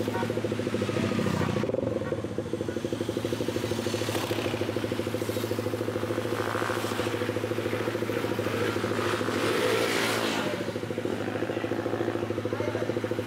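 Street traffic: motorcycles and a van passing close by, over the steady hum of a small engine idling nearby. The passing noise swells about a second in and again near ten seconds.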